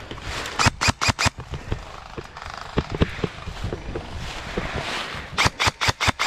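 Airsoft guns firing in short bursts: four quick shots about half a second in, scattered lighter shots and knocks in the middle, then a rapid burst of about six shots near the end.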